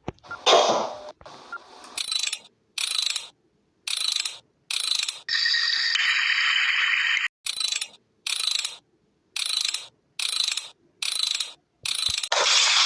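A short mechanical ratcheting sound effect played over and over, about a dozen times with silent gaps, and one longer stretch of about two seconds in the middle.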